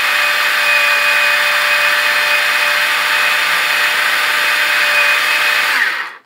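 Proctor Silex mini food chopper's motor running steadily at full speed, its blade puréeing chickpeas, roasted garlic and peppers into hummus. Near the end it winds down and stops.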